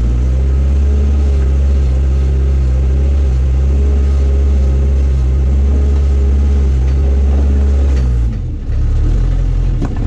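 John Deere 310C backhoe loader's diesel engine running steadily under load as the loader bucket works into a rock pile. The engine note drops briefly about eight seconds in, then picks up again.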